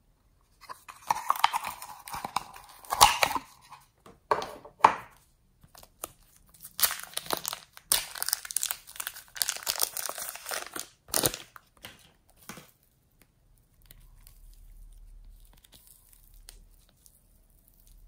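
Thin plastic wrapping crinkling and tearing as it is peeled off a piece of soft yellow foam clay. It comes in two long runs of crackling with a few sharp snaps, then goes faint after about twelve seconds.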